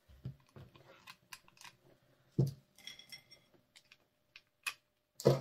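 Craft items being handled on a tabletop: scattered light clicks and taps, with a louder knock about halfway through and another near the end.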